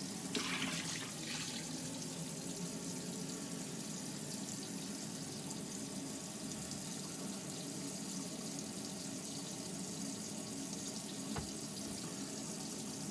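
Faucet running steadily, hot water being drawn continuously from an Alde water heater, with a single light click about eleven seconds in.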